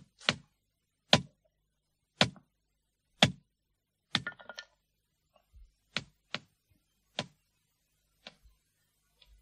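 A series of sharp knocks, about one a second at first. A short rattling cluster comes about four seconds in, and four more knocks follow, unevenly spaced.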